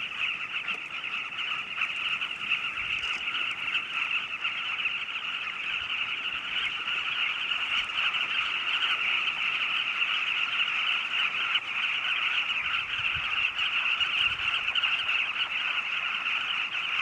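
A large nesting colony of carmine bee-eaters calling all at once: a dense, unbroken chorus of many overlapping calls, getting a little louder in the second half.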